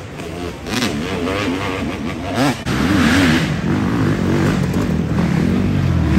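Off-road dirt bike engines revving up and down in quick waves as the riders work the throttle through mud. They get louder from about two and a half seconds in as the bikes come closer.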